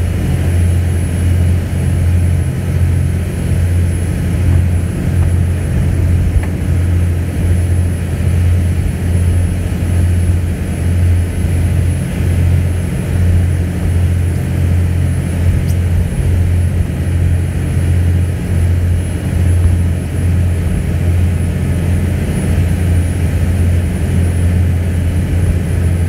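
Motorboat engine running steadily at speed, a deep continuous drone, with the rush of the churning wake.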